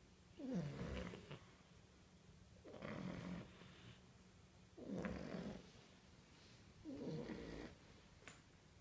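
Sleeping French bulldog puppies snoring: four even snores, about two seconds apart.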